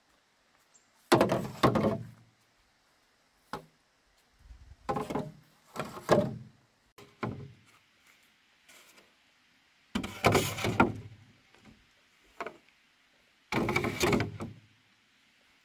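Bamboo being handled and worked: about six short bursts of knocking and scraping, spaced a second or more apart, with a couple of single sharp clicks between.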